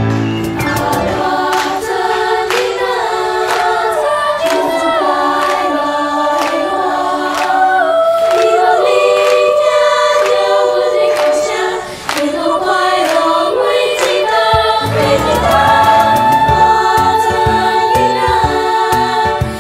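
Children's choir singing a Taiwanese-language song in several-part harmony, with long held notes. A low accompaniment joins about fifteen seconds in.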